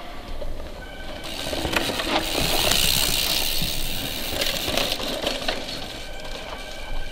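A mountain bike passing close on a dirt trail: the tyre noise swells about a second in, peaks in the middle and fades, with light metallic clinking from the chain and drivetrain.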